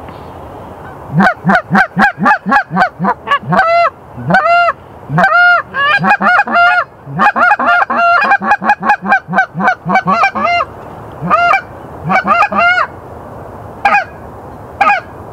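Canada goose calls blown hard: fast runs of honks and clucks, each note breaking from a low grunt up to a high honk. They thin to a few single honks in the last few seconds.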